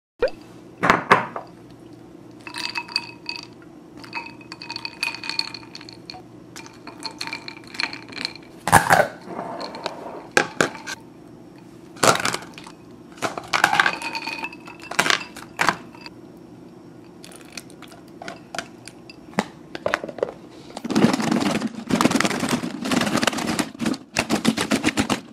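Boiled quail eggs clinking and knocking as they are put into a plastic food container. About 21 seconds in comes a fast, continuous rattle as the lidded container is shaken hard, cracking the eggshells so they peel easily.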